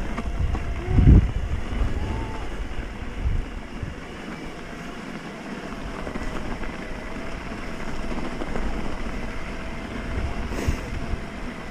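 Wind buffeting the microphone of a rider on an electric mountain bike, a steady rushing rumble with a faint steady whine underneath.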